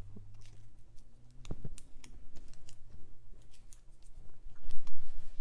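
Cardstock die-cut pieces being handled and set down on a craft table: scattered light clicks and taps, two sharper ones about a second and a half in.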